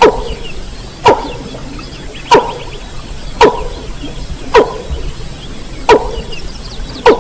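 Recorded rail (mandar) call used as a hunting lure: a sharp, downward-sweeping call repeated seven times at a steady pace of a little over one a second, with faint small chirps behind it.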